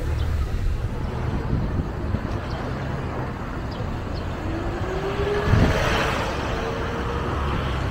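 Street traffic noise with a steady low rumble. A vehicle passes close about five and a half seconds in, and a whine rises slowly in pitch as it goes by.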